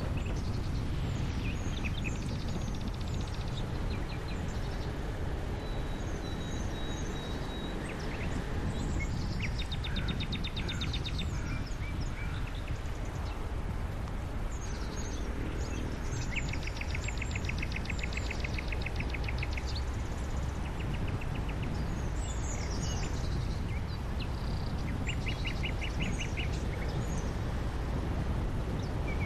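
Songbirds singing, with scattered chirps and several rapid trills, over the steady low rumble of a car driving.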